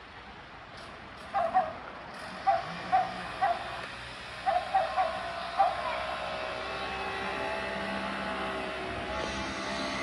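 A dog barking in short, sharp yaps, about a dozen in quick clusters over the first six seconds. A steady droning hum then fills the second half.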